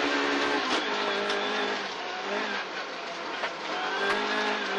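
Rally-prepared 1.4-litre Vauxhall Corsa engine heard from inside the car: the note falls as the car brakes for a hairpin, stays low through the turn, then climbs again as it accelerates out, over steady road and tyre noise.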